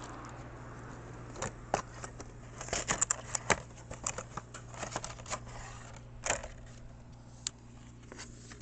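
A small cardboard box and its packaging being opened and handled by hand: irregular clicks, taps and short rustles, busiest through the middle, over a steady low hum.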